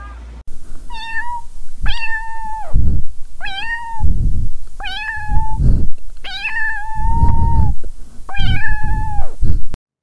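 A kitten meowing six times, high calls of about a second each, with a low rumbling noise between them. The sound cuts off suddenly near the end.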